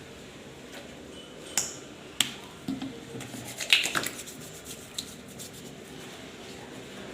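A hand sanitizer bottle being opened and used: two sharp clicks about one and a half and two seconds in, then a run of quick small clicks and handling noise, loudest near the middle.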